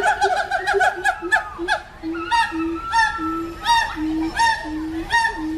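Several monkeys calling at once: a quick run of short, rising-and-falling calls, then slower calls with one long drawn-out note, over a steady series of low hoots about two a second.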